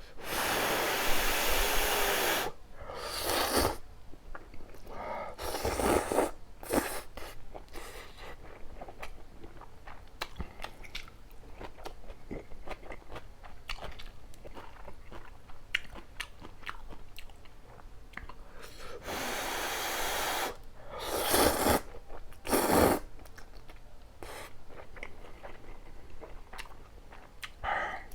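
Close-up eating of spicy ramyun noodles: several long, loud slurps, with wet chewing and many small clicks between them.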